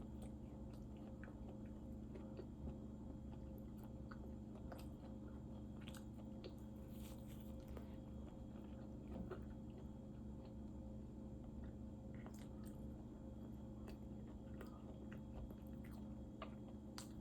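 A person chewing and biting food close to the microphone: faint scattered mouth clicks, with a brief louder noise about seven seconds in.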